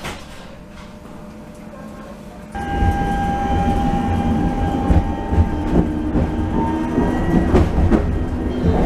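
Inside a tram car: quiet at first, then about two and a half seconds in the drive starts with a steady electric whine and a low rumble as the tram moves off along the rails. There are a few clacks from the wheels later on.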